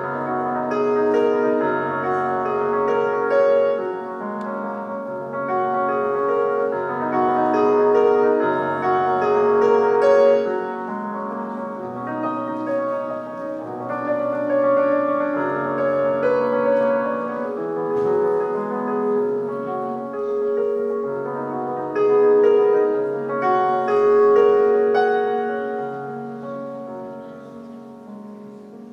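A solo piece played on a digital piano, the notes sustained and overlapping, growing quieter near the end.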